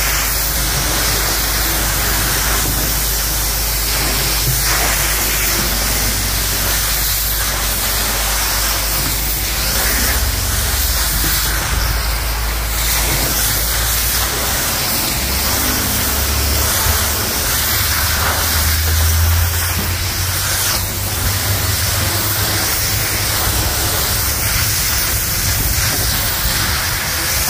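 Self-serve car wash pressure-washer wand spraying a steady high-pressure jet onto a car roof, blasting off snow and ice, with a loud continuous hiss of spray and a low hum underneath.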